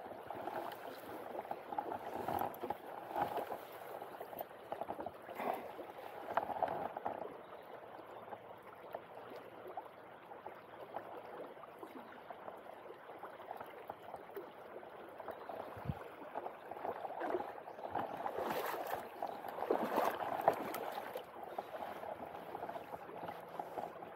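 Shallow river flowing and gurgling over a stony riffle close by, swelling and falling unevenly, loudest for a few seconds near the end.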